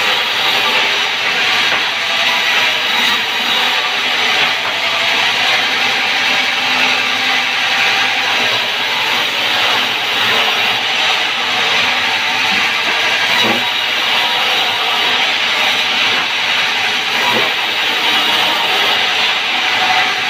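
Sawmill band saw cutting through logs: a steady, loud, bright rushing noise of the blade running through the wood, with a couple of short knocks partway through as the timber is shifted on the table.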